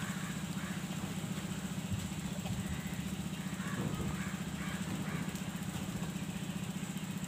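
A motor running steadily, a low hum with a fast, even pulse.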